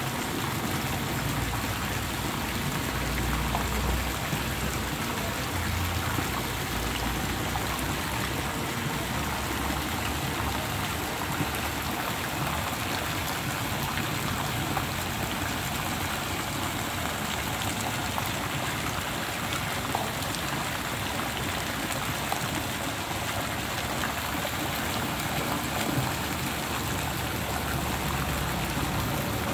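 Water splashing steadily into a swimming pool, a continuous even patter with no break.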